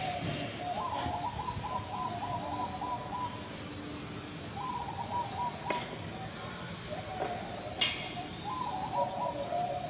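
A bird calling in three wavering, warbled phrases, with a few sharp clicks in between.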